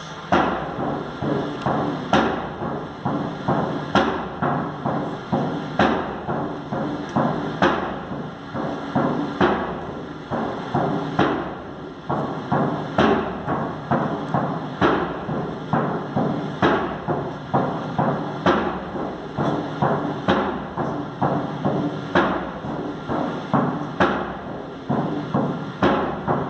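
Hand-held frame drum beaten in a steady, slow ceremonial rhythm: a loud accented beat roughly every two seconds with softer beats between.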